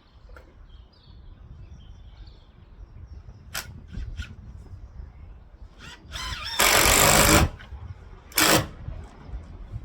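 A few sharp knocks, then two short loud bursts from a power tool, the first just under a second long and the second briefer.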